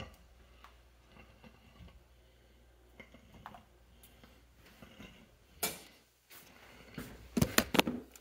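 A spoon stirring thick cream soup in a stainless steel pot, with faint scrapes and ticks. A single loud knock comes about five and a half seconds in, then a quick run of sharp knocks and clicks near the end.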